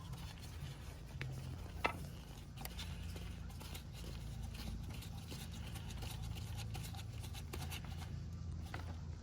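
A few faint clicks and taps of a rubber vibration mount and plastic airbox parts being handled and fitted onto a bracket, the sharpest just under two seconds in, over a steady low hum.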